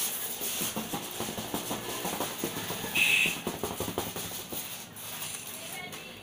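Loose glitter pattering and rattling onto newspaper as the poster board is tilted up on edge to shake off the excess, a dense run of small ticks. There is a short high squeak about three seconds in.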